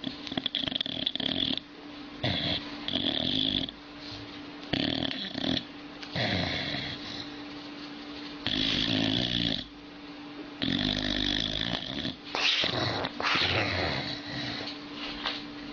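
Old dog snoring in a run of uneven, rasping breaths, each about a second long, with a steady low hum underneath.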